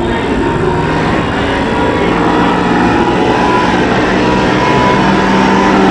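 Supercharged racing boat engines running hard, a continuous engine sound with a steady low drone that grows gradually louder.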